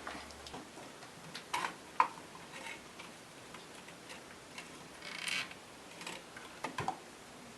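Scattered small clicks and taps of hand tools and parts on a vintage tube radio's metal chassis, with a brief scraping rustle about five seconds in.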